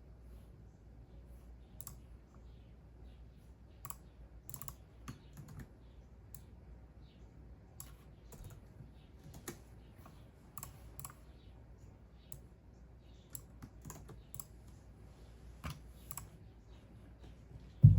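Computer keyboard typing: scattered key clicks at an uneven, unhurried pace over a faint low hum, ending in one loud dull thump.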